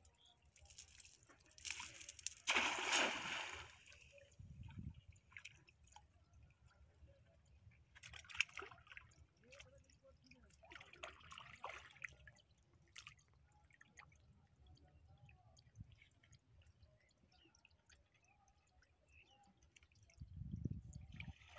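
A cast net landing on the river with a loud spreading splash about two seconds in, then quieter sloshing and trickling water as the fisherman wades and handles the net line.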